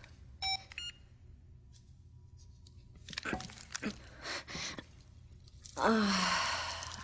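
A few faint clinks and small short sounds, then a telephone starts ringing loudly near the end.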